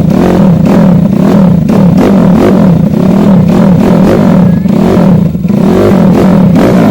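YCF Pilot F150 pit bike's 150 cc single-cylinder four-stroke engine running loudly on its very first start, revved up and down over and over with the throttle.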